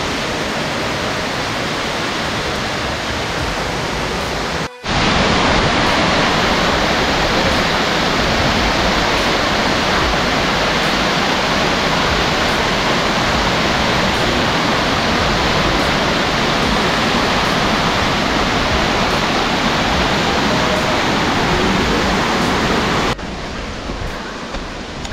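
Waterfall pouring, a dense, steady rush of water. It cuts off for a moment about five seconds in, comes back louder, and drops to a lower level near the end.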